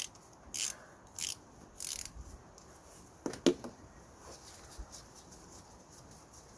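Ratchet on a 10 mm socket undoing a diesel glow plug: four short rasping strokes of the pawl about two-thirds of a second apart, then a brief squeak about three seconds in and a few faint ticks.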